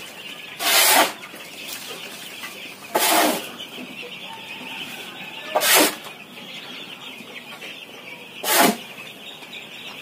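A shovel scraping and scooping dry husk poultry litter four times, each a short swish about two and a half seconds apart, over the steady clucking of chickens in the shed.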